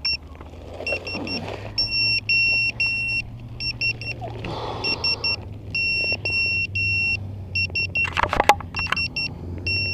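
Electronic buzzer beeping at a high pitch in repeating groups of short and long beeps, over footsteps in dry brush and a low steady hum. A loud burst of crackling, as the wreck is handled, comes about eight seconds in.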